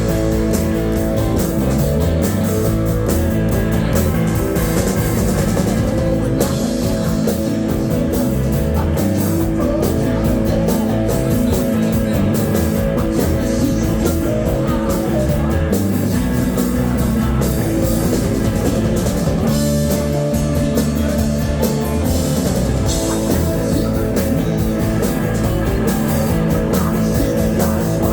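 Rock band playing live, with electric guitar and drum kit, loud and steady with no singing.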